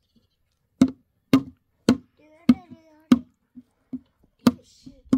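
An upturned plastic basin struck like a drum with a hand-held stick, a steady beat of hollow knocks at about two strikes a second. A small child's voice is heard briefly in the middle.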